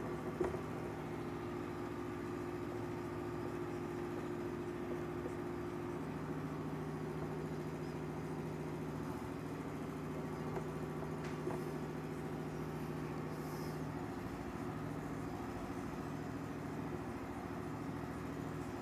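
Steady mechanical hum with a few pitched lines that shift in strength now and then, over faint scratches and taps of a marker writing on a whiteboard.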